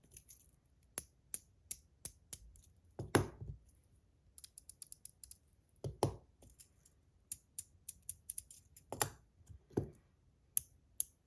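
Metal Top C fidget slider being worked by hand: many quick sharp clicks at an uneven pace, with a few louder snaps, the click of its tunable detent.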